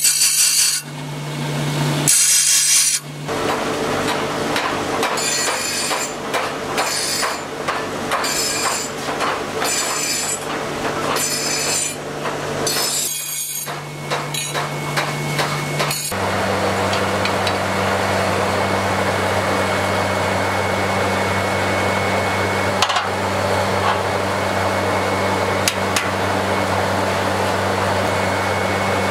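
Grinding wheel running with a hum while a forged steel fork-hoe blade is pressed against it, giving harsh, scraping grinding bursts in repeated passes about once a second. About sixteen seconds in, this gives way to a steady low machine drone.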